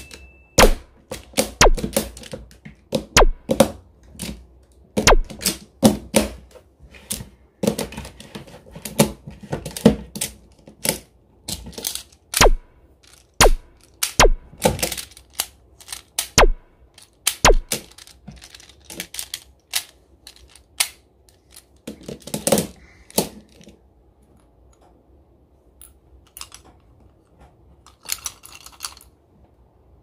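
Clear plastic magnetic building tiles clacking as they are lifted, knocked together and set down on stacks: an irregular run of sharp plastic clicks and knocks, thinning to a few faint ticks over the last several seconds.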